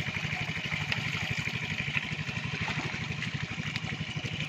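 A small engine running steadily with a fast, even chug.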